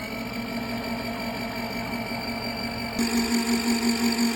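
Small portable washing machine's electric motor spin-drying a mop head: a steady humming whine that gets louder and starts to waver about three seconds in.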